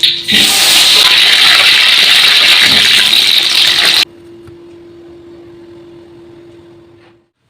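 A loud, steady rushing hiss that cuts off abruptly about four seconds in, followed by a faint steady hum that stops shortly before the end.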